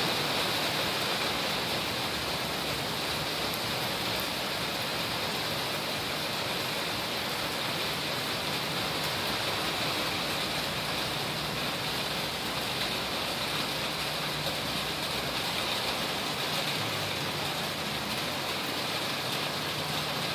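Heavy monsoon rain pouring steadily onto flooded paving and a pool, an unbroken hiss of falling water.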